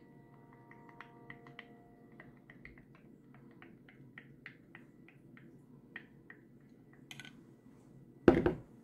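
Wooden stirring stick ticking and clinking against a drinking glass as a powdered green drink is stirred into water, in light irregular taps a few times a second. Near the end, one loud knock.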